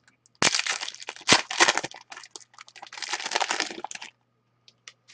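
Foil wrapper of a hockey card pack being torn open and crinkled: a run of crackling with one sharp snap about a second in, then a few light clicks.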